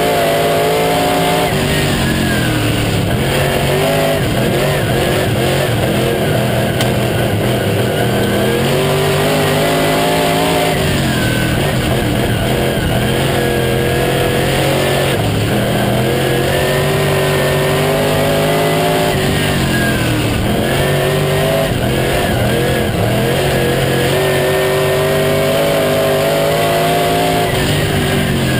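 Late model stock car's V8 engine at racing speed, heard from inside the cockpit. Its pitch drops and climbs again several times as the throttle is backed off and opened up around the laps.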